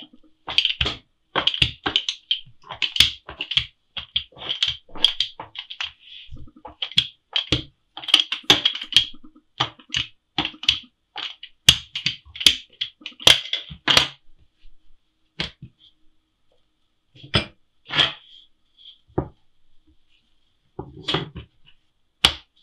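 Quick, irregular clicks and knocks of a small metal hand roller pushed back and forth over yeast dough on a wooden table, dense for about the first fourteen seconds, then sparser.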